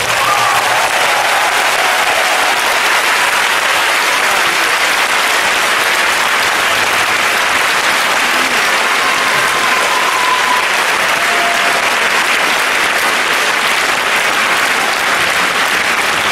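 A large audience applauding steadily at the end of a song.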